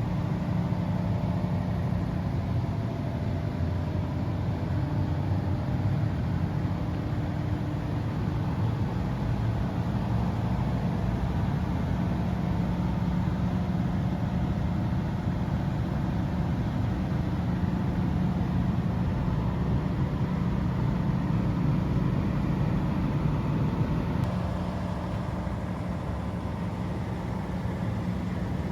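FG Wilson 715kVA diesel generator set running steadily on a test run, a constant deep engine hum that drops slightly in level near the end.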